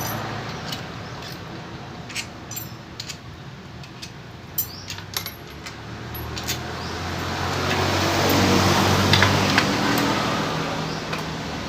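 Loose metal bolts and hand tools clicking and clinking against each other while a scooter's casing bolts are undone. From about halfway through, an engine hum swells, peaks and fades again beneath the clinks.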